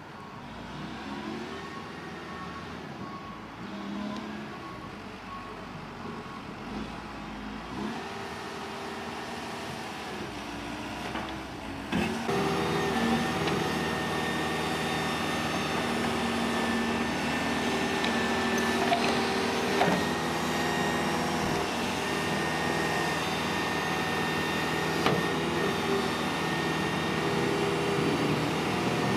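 Engine of a vehicle or machine running, with its pitch rising and falling in the first few seconds, then suddenly louder about twelve seconds in.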